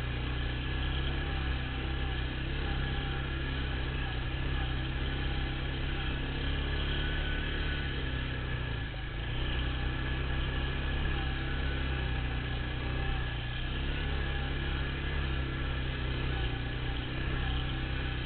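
Polaris ATV engine running steadily as the quad is ridden along, easing off briefly about halfway through before picking up again.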